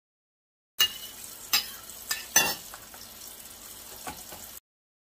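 Kitchen prep sounds: a knife and a plastic tub knocking on a granite countertop, heard as several sharp clicks and knocks over a steady crackling hiss. The sound starts about a second in and cuts off abruptly near the end.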